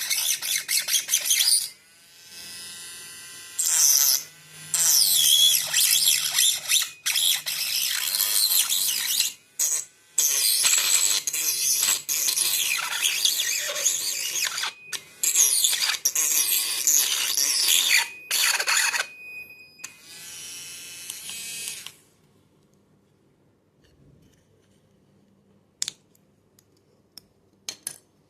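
Hand-held mini grinder cutting, a harsh high-pitched grinding that comes in a series of short bursts with brief pauses. It stops about 22 seconds in, and a few light clicks follow near the end.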